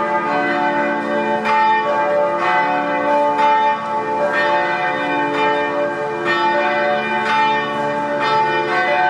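Church bells ringing, several bells of different pitch struck in turn about once a second, each note ringing on under the next.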